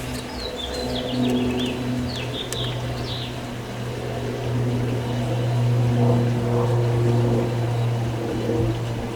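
A steady low mechanical hum, with a bird chirping a quick series of short falling notes over the first three seconds or so.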